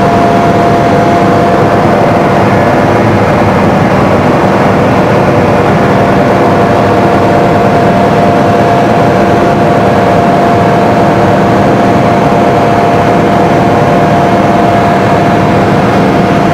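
Concrete mixer truck's diesel engine held at raised revs, running steadily with a steady whine as it drives the drum round to churn wash water inside it.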